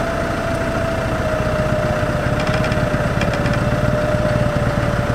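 A vehicle engine running steadily with a low rumble, and a steady whine above it that drifts slightly lower in pitch.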